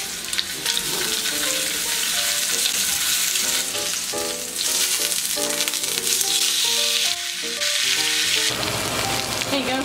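Bone-in steak searing in a hot cast-iron grill pan, a steady loud sizzle. A light background melody plays over it and stops near the end.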